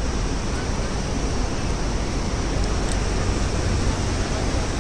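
A river in flood rushing past: a steady, even roar of fast water with a deep low rumble underneath.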